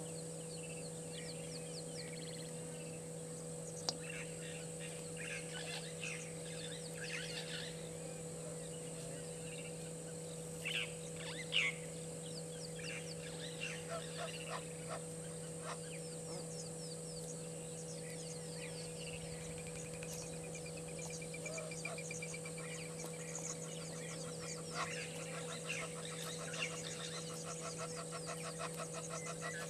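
Egyptian geese honking a few times, the loudest calls near the middle, among scattered small-bird chirps. A rapid trill comes in near the end, and a steady low hum runs underneath.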